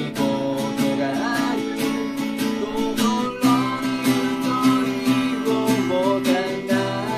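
Yamaha acoustic guitar strummed in a steady rhythm, accompanying a man's singing voice.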